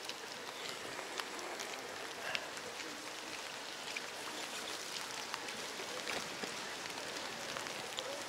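Rain pattering: scattered, irregular drop ticks over a steady hiss.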